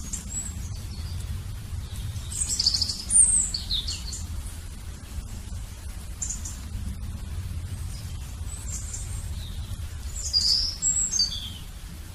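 Birds chirping: quick high chirps and short falling whistles in clusters, loudest about two to four seconds in and again near the end, over a low steady rumble.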